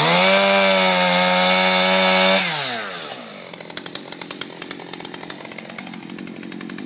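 Two-stroke gas chainsaw revved to full throttle for about two and a half seconds, then the throttle is let go and the engine winds down and settles into a steady idle.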